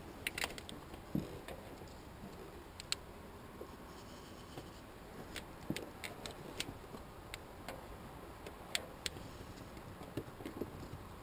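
Scattered, irregular light clicks and taps of hand tools and metal parts being handled while a fitting is undone on an engine's fuel line.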